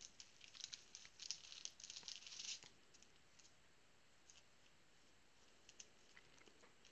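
Faint crinkling and crisp clicks of trading cards and their foil pack being handled, busiest in the first two and a half seconds, then a few scattered clicks.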